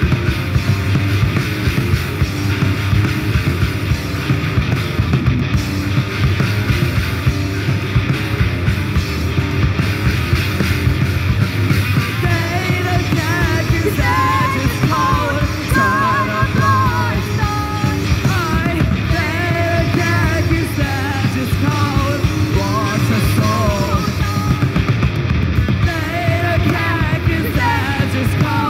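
Live punk rock band playing: electric guitars, bass guitar and a drum kit at full volume, with a singer's voice coming in about twelve seconds in.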